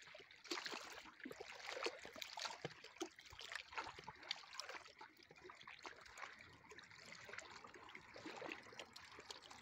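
Faint water lapping and small irregular splashes at the shore, with scattered light clicks, while a hooked fish is played on a rod.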